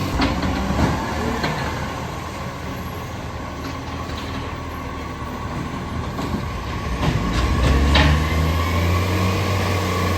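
Garbage truck's diesel engine running with an exhaust leak. It eases off after the first second and picks up again from about seven seconds in, with several sharp metallic clanks near the start and around seven to eight seconds.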